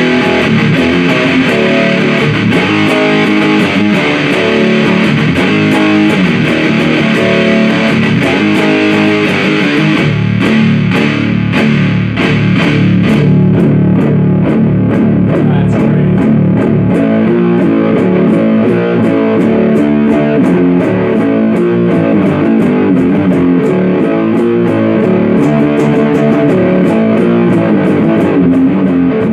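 Electric guitar played through the 77 Fuzz Blender, a Big Muff-style fuzz pedal, running riffs with a thick fuzzy tone. About halfway through, the sound loses much of its treble and turns darker.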